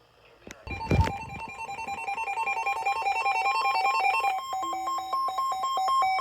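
Electronic emergency alert tone: a loud, rapid warble between two pitches that starts just under a second in, with a thump about a second in. The pattern changes about four seconds in, as if a second alerting device joins.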